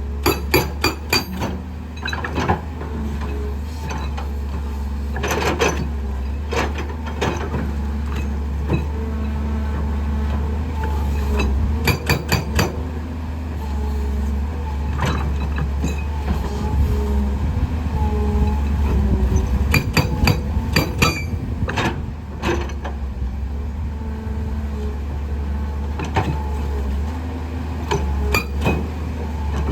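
Excavator-mounted hydraulic rock breaker hammering rock in short bursts of rapid blows every few seconds, over the excavator's steady diesel engine hum.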